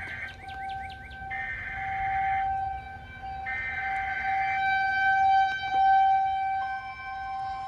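Tornado warning siren sounding a steady, slightly wavering tone, with a second steady tone joining near the end. Birds chirp faintly around it.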